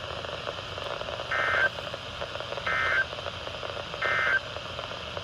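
Emergency Alert System digital data tones: three short bursts of warbling two-pitch tone, about a second and a half apart, over steady radio hiss. It is the End of Message signal that closes the warning broadcast.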